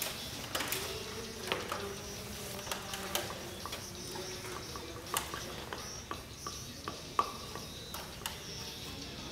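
Scattered light clicks and taps from handling materials during studio work, over a steady low room hiss. The sharpest taps come about five and seven seconds in.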